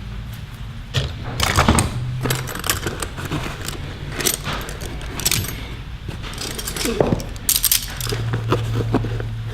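Metal hand tools (ratchets and wrenches) clinking and rattling against each other as they are handled and moved in and out of a tool bag, with a run of short clicks and knocks and several denser bouts of clatter.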